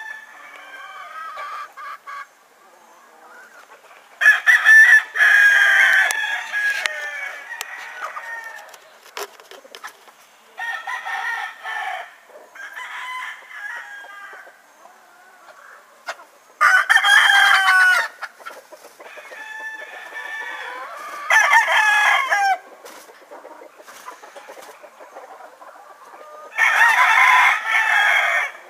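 Chickens in a pen: a rooster crows several times, long loud calls a few seconds apart. Hens cluck softly in between.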